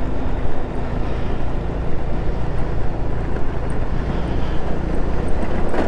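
GY6 scooter engine running steadily while riding, mixed with wind rushing over the microphone.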